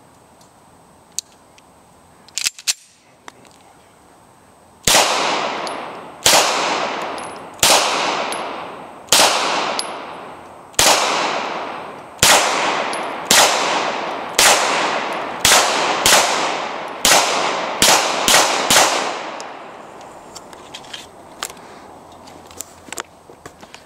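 Semi-automatic pistol firing a string of about fourteen shots, each trailing off in an echo. The first shots come roughly a second and a half apart, speeding up to about two a second near the end.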